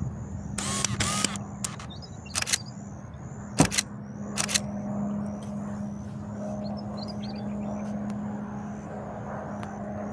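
Pilatus PC-21 turboprop trainer climbing out after departure, its propeller giving a steady droning hum that swells toward the end. Several sharp clicks fall in the first half, and a high chirping repeats throughout.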